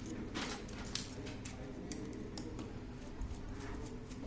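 Scattered light clicks and taps of a screwdriver and small plastic parts being handled while a flatbed scanner is unscrewed, over a low steady hum.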